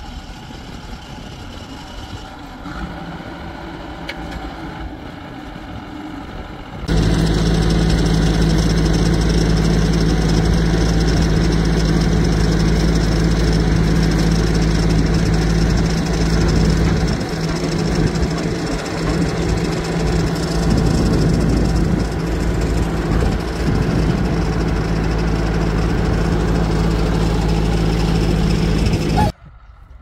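Heavy-machinery diesel engine running steadily. It is fainter for the first several seconds, then becomes loud and close about seven seconds in, and stops suddenly near the end.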